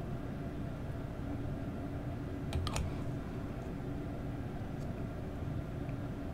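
Steady low room hum with a few faint clicks and a sharper pair of clicks about two and a half seconds in, from a glue bottle and plastic model parts being handled.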